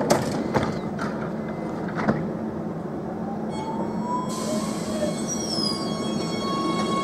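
An Oslo T-bane MX3000 metro train's doors shut with a few knocks in the first two seconds. Then the electric traction drive starts up with a rising whine that levels off, joined by a set of high whistling tones as the train begins to pull away.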